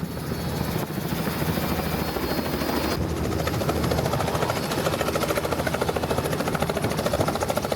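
Tour helicopter running close by, its rotor beating fast and evenly over the turbine's steady noise, growing a little louder over the first second.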